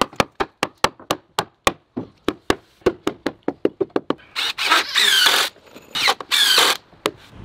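A claw hammer taps quickly and lightly on a pressure-treated pine deck board, about four times a second, knocking it into place. After about four seconds, a cordless drill drives a screw into the board in two bursts, the motor's whine rising and falling.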